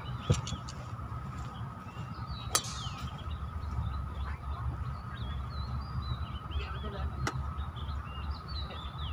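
A golf club striking the ball off the tee: one sharp crack with a short ring about two and a half seconds in, with a shorter loud click just before it near the start. Birds chirp throughout over a low steady outdoor rumble.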